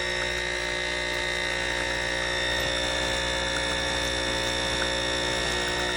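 Mixpresso capsule espresso machine's 19-bar pump running, a big noise heard as a steady, even hum with several tones held throughout.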